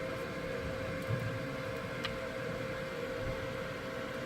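Fume extraction fan running with a steady hum and a constant mid-pitched tone, with a faint click or two of small handling.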